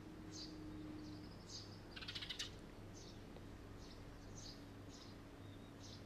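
Red-rumped swallow calling: short high chirps about twice a second, with a brief rapid rattle about two seconds in, the loudest part. A faint steady low hum runs underneath.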